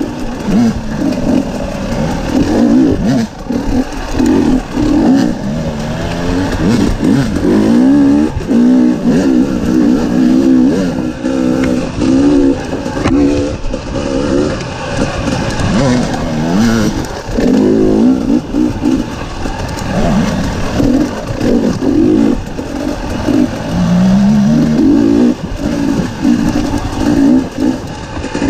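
Dirt bike engine riding a wooded trail, revving up and down constantly as the throttle is worked, with a clear rise in pitch near the end.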